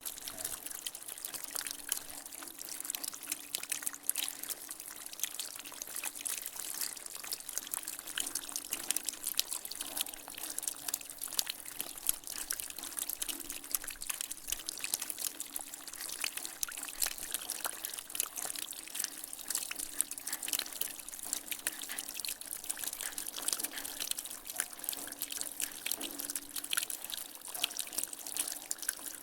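Water dripping and trickling from a rain gutter after rain: a rapid, irregular patter of drops over a steady running trickle.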